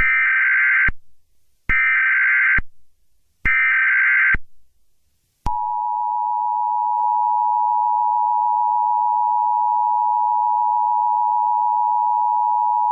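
Emergency Alert System tones: three bursts of warbling SAME header data about a second long and a second apart, then the steady two-tone EAS attention signal starting about five and a half seconds in. Together they announce that an emergency alert message follows.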